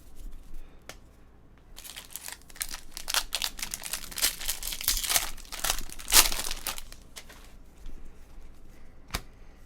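Foil trading-card pack wrapper being torn open and crinkled, a dense crackling run from about two seconds in to about seven seconds in, with a sharp click or two around it.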